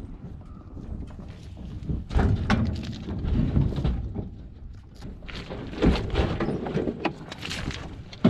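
Large black plastic water tank being shoved and tipped up onto a utility trailer: a series of irregular hollow thumps and scrapes of the tank against the trailer bed.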